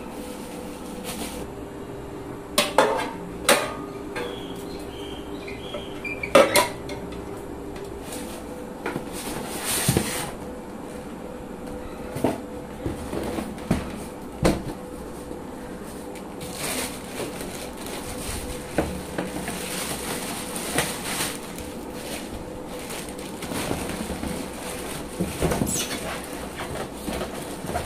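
A hard air-fryer crisper plate knocking and clattering a few sharp times early on, then cardboard box flaps and plastic wrapping rustling and crinkling with small clicks as the boxed air fryer is handled.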